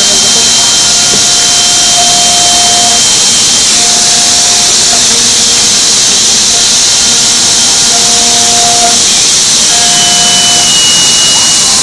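Five-axis CNC router machining a wooden door panel: a loud, steady hiss of the spindle and cutter in the wood, with short steady whines that come and go as the head moves.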